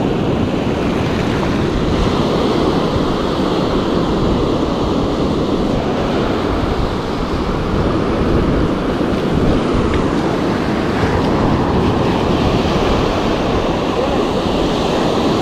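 Ocean surf breaking and washing up a sand beach in a steady rush, with wind buffeting the microphone.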